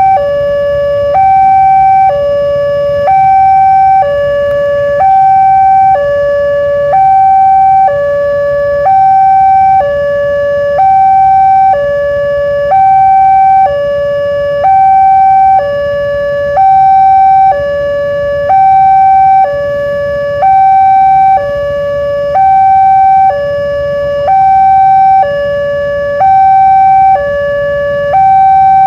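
Railway level-crossing warning siren sounding its ordinary two-tone signal, a high and a low note alternating about once a second in a steady loop. This warns that a train is approaching and the crossing barriers are down.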